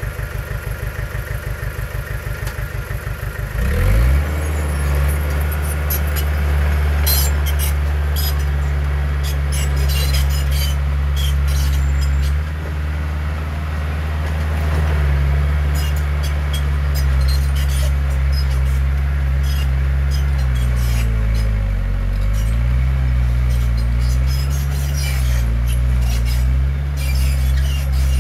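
Heavy diesel engine of earthmoving machinery idling with an even low chug, then revving up about four seconds in and running hard at working speed. Its pitch dips and rises with the load later on, with scattered clanks and clatter over the working stretch.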